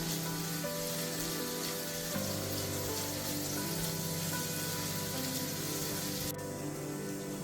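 Food frying in oil in a pan, a steady sizzle that cuts off suddenly about six seconds in.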